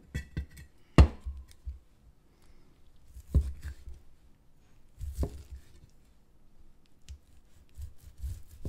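Cleaver slicing through a cooked, chilled chicken breast, the blade knocking down on the cutting board as each slice goes through. There are three sharp knocks about two seconds apart, the first the loudest, with lighter taps between.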